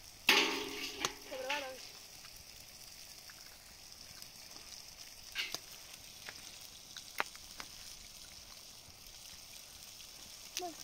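Sliced tomatoes sizzling in a frying pan over a wood fire, a steady hiss throughout. A few sharp taps midway as eggs are cracked against a metal bowl. A short burst of a voice near the start is the loudest sound.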